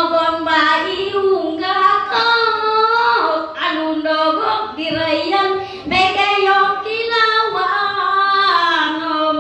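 A woman's unaccompanied traditional Téduray chant: one voice holding long notes that slide from pitch to pitch, with short breaks between phrases.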